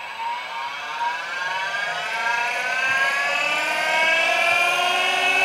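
Surface grinder motor and wheel spinning up after switch-on: a whine of several tones rising steadily in pitch and getting louder, levelling off near the end.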